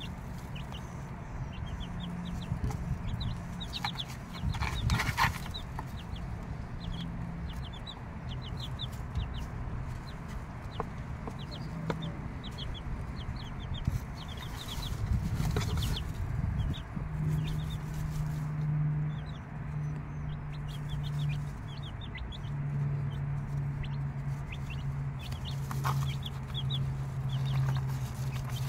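Six-day-old chicks peeping, a steady stream of short high cheeps, with their mother hen clucking low beneath them, more continuously in the second half.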